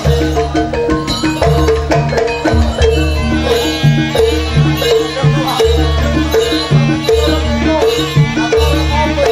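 Live Javanese jaranan ensemble music: drums and gamelan-style pitched percussion playing a fast, steady repeating pattern over a pulsing low beat.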